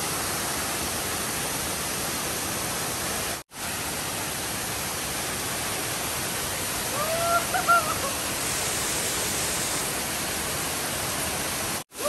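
Large waterfall pouring onto rocks: a steady, even rush of falling water. The sound breaks off for an instant twice, and a short pitched cry rises over the rush a little past the middle.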